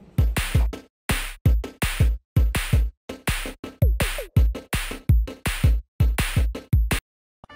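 Electronic background music with a drum-machine beat; it cuts off abruptly about seven seconds in.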